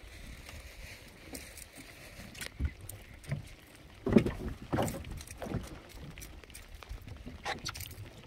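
A hooked peacock bass splashing and thrashing at the water surface as it is reeled up to the boat, with a few sharp splashes about four to five seconds in over a low rumble.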